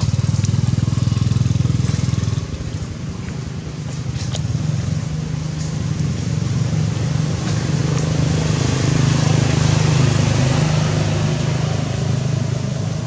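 A small engine running with a steady low note and a rapid firing pulse; it drops back about two seconds in, then builds gradually louder before easing off near the end.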